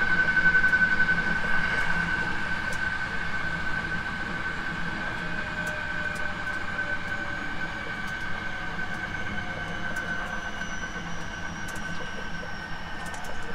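Hankyu 9300 series electric train running, with a steady high-pitched tone over the running noise. From about halfway through, a faint higher whine slowly falls in pitch.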